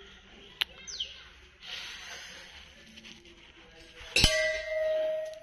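A hanging temple bell struck once about four seconds in: a sharp metallic strike, then a long, steady ringing tone.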